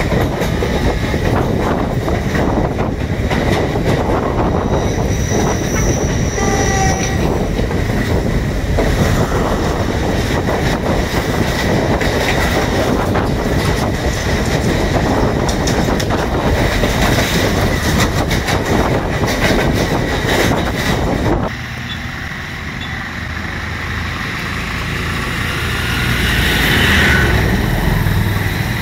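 Passenger train running, heard from on board the moving carriage: a steady rumble and clatter of the wheels on the rails. About three-quarters of the way through it cuts off abruptly to a quieter background.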